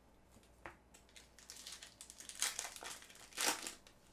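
Foil trading-card pack crinkling as it is handled and torn open, in irregular crackles that grow louder, with the two loudest near the middle and towards the end.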